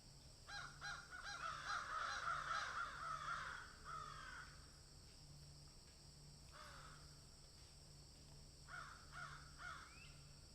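Birds calling: a rapid run of short, harsh calls in the first few seconds, a single call about six and a half seconds in, and three more near the end.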